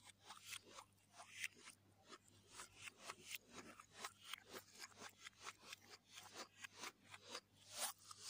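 Fingers mixing and squeezing Schezwan fried rice on a plate: a quick run of faint, moist clicks and crackles, several a second, with a stronger cluster near the end. The audio is played in reverse.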